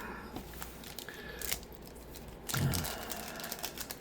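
Crinkling and crackling of foil trading card pack wrappers being handled, with one short low thump about two and a half seconds in.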